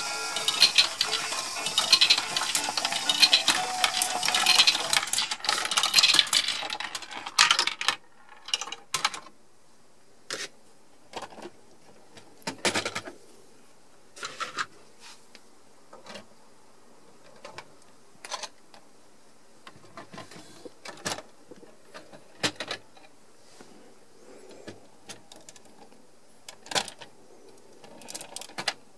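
Small plastic Lego GBC balls clattering and rattling through a Lego Boost pachinko ball-contraption module, a dense clatter for about seven seconds. After that only scattered single clicks and knocks of plastic parts, a second or two apart.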